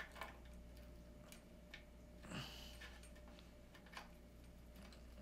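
Faint scattered plastic clicks and scrapes as a ring light's mounting lock is worked into the bracket at the base of the ring. A somewhat louder rustle comes about halfway through.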